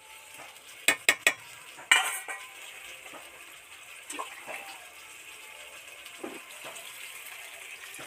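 A metal spatula knocks and scrapes against a steel kadai several times in the first two seconds, the loudest knock about two seconds in. After that, jackfruit and potato curry sizzles steadily in the pan.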